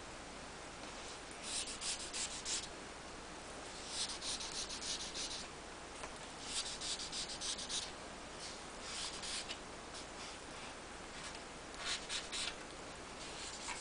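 Bursts of quick rubbing strokes across a plastic screen protector film being smoothed onto an iPod touch to push out trapped air bubbles. The strokes come in about five short spells, each around a second long, with pauses between.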